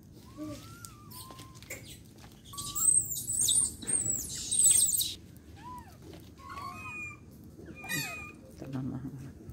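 Young long-tailed macaques calling: soft, arching coos scattered through, and about three seconds in a loud burst of shrill, very high squeals lasting about two seconds.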